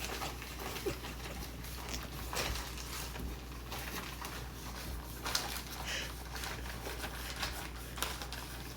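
Chicken-breast catfish bait being mixed by hand: scattered faint taps and rustles at an irregular pace, over a low steady hum.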